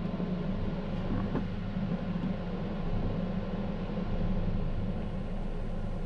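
Steady low hum with a faint hiss of room noise, from a running machine such as a fan or air conditioner.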